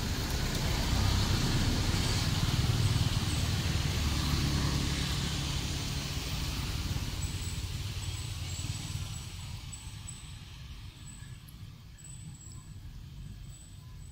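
A motor vehicle passing by. Its engine and road noise swell over the first few seconds, then fade away by about ten seconds in.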